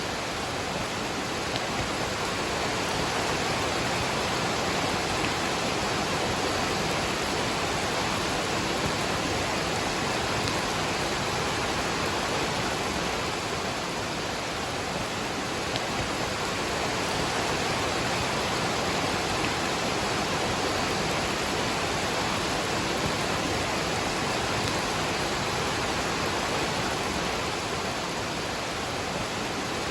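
Waterfall rushing steadily together with falling rain: an even, unbroken hiss with no pauses.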